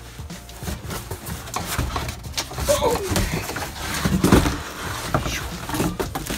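Cardboard boxes being dragged and shifted against each other. It is an irregular run of scraping and rustling, broken by several sharp knocks of cardboard.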